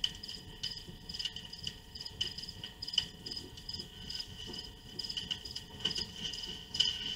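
Crickets chirping: a steady run of short, high, repeated chirps.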